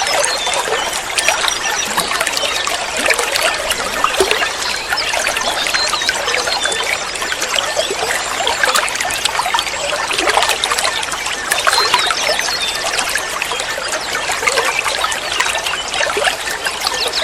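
Water trickling and splashing steadily, a continuous bright crackle of running water.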